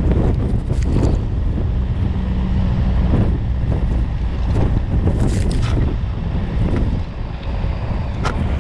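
Land Rover Freelander's engine pulling steadily through deep snow, with snow spraying and scraping against the body in irregular rushes. Wind buffets the microphone.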